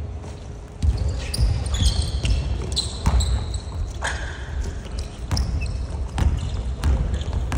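Basketball bouncing on a hardwood gym floor during play, a string of sharp thuds, with sneakers squeaking and feet running, echoing in the large hall.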